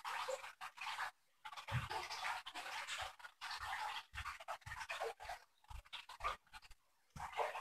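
Quick, irregular panting breaths close to the microphone, with soft low thumps between some of them.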